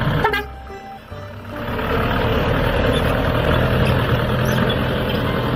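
Water tanker truck's engine running as the truck drives across a field, growing louder about a second and a half in, with background music.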